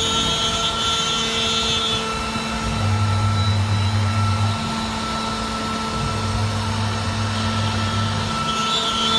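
CNC router spindle running steadily as it cuts a jali pattern into plywood. A low hum comes and goes in stretches of about two seconds, and a higher whine joins near the start and again near the end.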